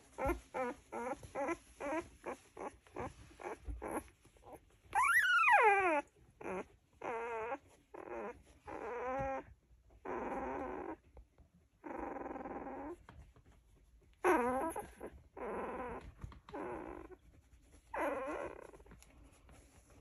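Newborn golden retriever puppies whimpering and squeaking in their sleep. A quick run of short squeaks comes first, then a loud cry falling in pitch about five seconds in, followed by a string of drawn-out whines, with another falling cry later on.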